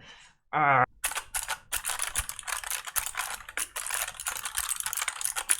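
Fast typing on a mechanical keyboard, a dense run of key clicks that starts about a second in, after a brief vocal sound.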